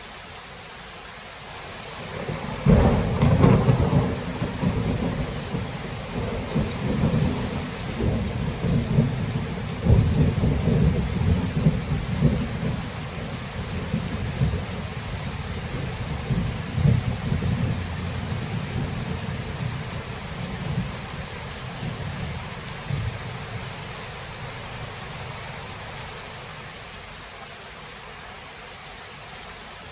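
Thunder rolling over steady rain: a long, deep rumble breaks in about three seconds in, swells with several louder peaks, and dies away over some twenty seconds, leaving the rain's even hiss.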